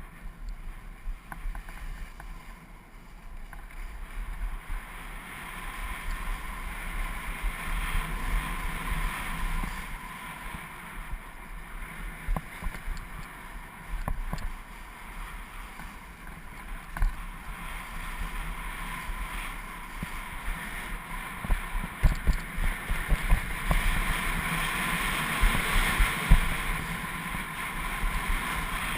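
Wind rushing over the microphone together with a steady scraping hiss of edges sliding and carving over packed snow during a downhill run. Irregular low thumps grow busier and louder in the second half.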